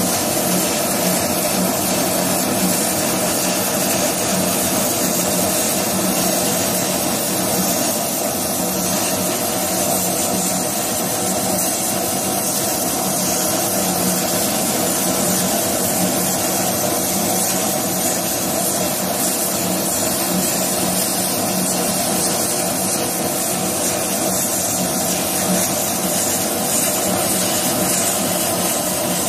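CO2 laser cutting machine running as it cuts a pattern in paper: a steady rushing of air with a low, even hum.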